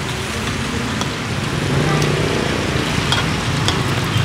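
Street-stall ambience: a steady hiss of deep-fat frying mixed with road traffic going by.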